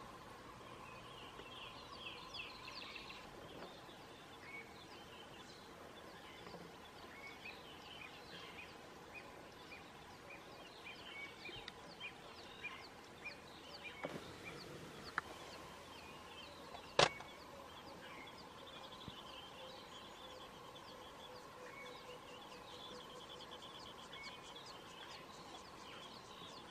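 Many birds chirping and calling in short notes, over a faint steady drone. One sharp click about two-thirds of the way through is the loudest sound.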